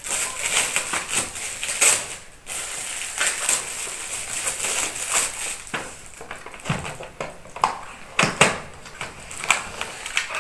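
Gift packaging being unwrapped by hand: wrapping rustling and crackling irregularly, with a couple of heavier knocks in the second half.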